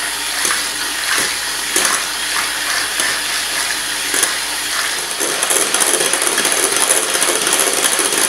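Electric hand mixer whipping cream in a glass bowl: the motor runs steadily while the wire beaters clatter with sharp clicks against the glass. The sound grows rougher in the second half as the cream thickens toward whipped.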